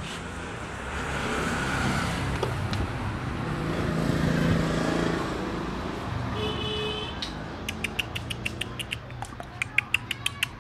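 A motor vehicle passes by on the street, its engine and road noise swelling over a few seconds and then fading. After it comes a run of quick, regular clicks, about three or four a second.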